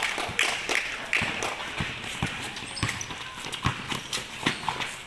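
Basketball game play on a hardwood gym floor: a ball bouncing and players' shoes thudding as they run, in an irregular patter of several thumps a second.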